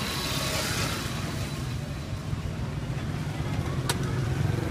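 Steady low rumble of street traffic, with a sharp click a little before the end.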